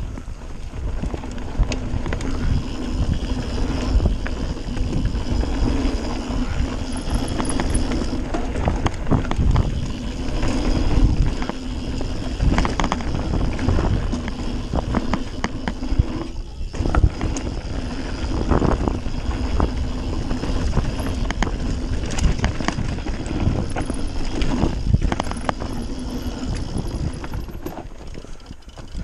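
Radon Swoop 170 full-suspension mountain bike riding fast down a dirt flowtrail, heard from a handlebar-mounted action camera: continuous tyre rumble on the dirt with frequent knocks and rattles over bumps, plus wind on the microphone. A steady hum runs under it and drops out briefly about halfway through.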